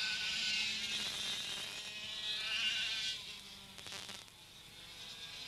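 Two-stroke racing kart engines buzzing at high revs as karts pass close by, the pitch rising and falling. About three seconds in the sound falls away as they draw off, then slowly builds again near the end.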